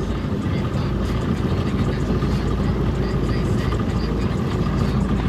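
Motorboat engine running steadily as the boat cruises slowly, a continuous low drone with water and wind noise mixed in.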